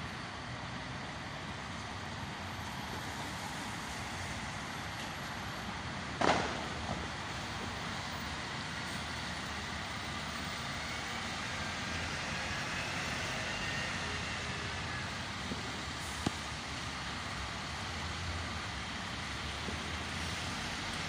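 Diesel fire engine running as it moves out of the station bay. A short, loud burst of air about six seconds in is the air brakes releasing.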